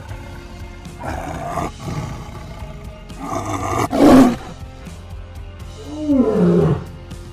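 Background music with animal calls laid over it: a few short, rough calls, the loudest about four seconds in, then a longer call that falls in pitch near the end.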